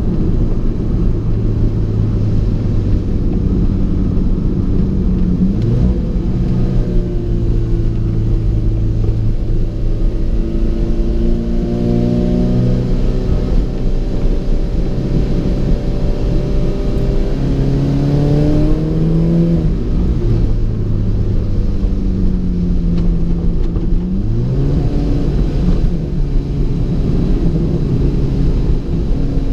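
Alfa Romeo 4C's turbocharged four-cylinder engine under way, its note climbing as it pulls through the gears and dropping or jumping sharply at each gear change, several times over. Beneath it is a steady hiss of tyres on a wet road.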